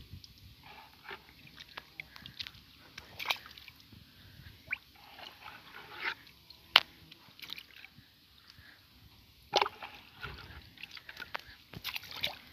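Water sloshing in a carried bucket, with scattered knocks and rustles, then water splashing into a pond near the end as the bucket is emptied at the bank.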